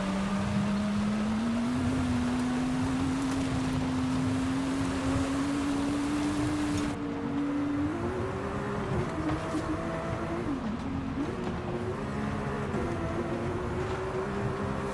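Sports car engine running steadily, its pitch climbing slowly, then sitting higher and wavering from about eight seconds in. A hiss over it drops away about seven seconds in.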